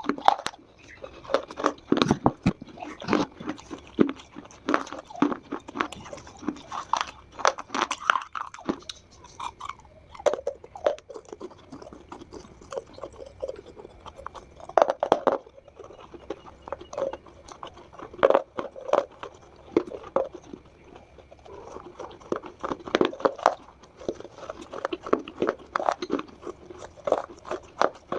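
Dry Multani mitti (fuller's earth clay) being bitten and chewed, close to the microphone: clusters of sharp, crackly crunches with short quieter spells between them.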